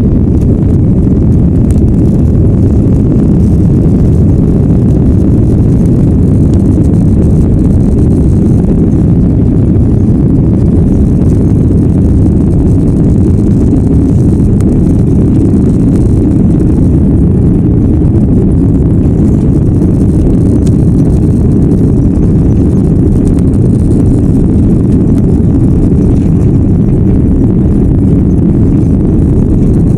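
Jet airliner cabin noise as the plane rolls along the runway: a steady, loud, deep rumble of engines and wheels heard from inside the cabin.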